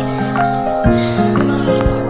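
Soft instrumental background music: sustained notes and chords, with a new chord struck about once a second.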